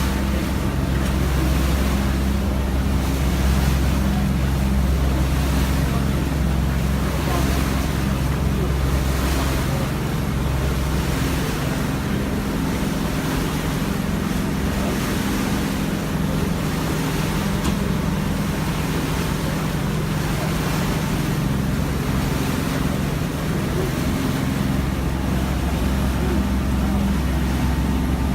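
A boat's engine running steadily under way, a low drone with wind and rushing water over it.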